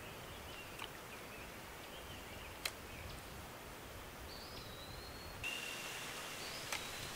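Quiet outdoor ambience: a faint steady hiss with three soft clicks. About five and a half seconds in, a thin, high, steady insect drone comes in.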